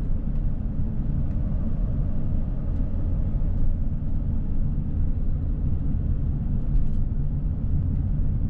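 Steady low rumble of engine and road noise from a vehicle driving along at an even speed, heard from inside the cab.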